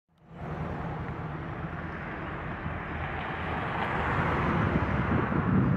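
Outdoor street ambience picked up by the camera's microphone: a steady rush with wind rumbling on the mic. It starts abruptly and swells gradually louder toward the end.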